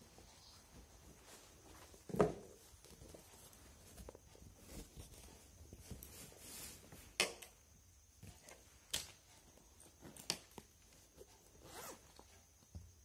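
Faint scattered clicks and knocks with light rustling between them, over a faint steady high-pitched whine.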